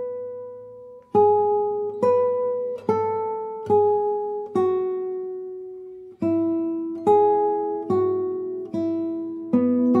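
Background acoustic guitar music: slow plucked chords, a new one struck about every second, each ringing out and fading.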